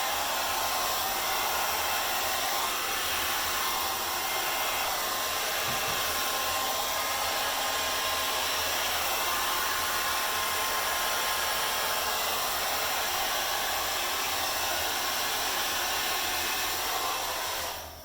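Hair dryer running steadily, blowing on wet poured acrylic paint to move it across the canvas; it switches off near the end.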